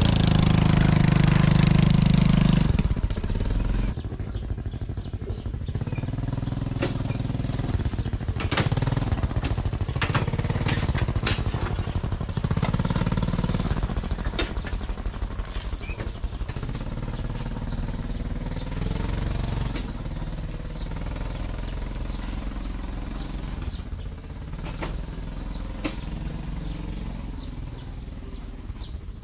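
Small motorcycle engine running as it tows a loaded cart along a bumpy dirt track, with scattered knocks and rattles. It is loudest for the first few seconds, then runs steadier and fades near the end.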